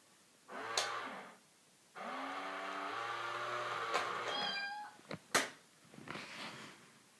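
Domestic cats meowing and yowling: a short call about half a second in, then a long, drawn-out low yowl lasting about three seconds. A sharp knock comes about five seconds in, then another shorter call.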